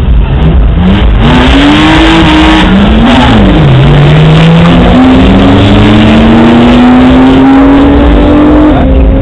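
Two cars launching hard from a drag-strip start line. The engines rev up and rise in pitch, drop sharply at a gear change, then climb again slowly as the cars accelerate away down the quarter mile.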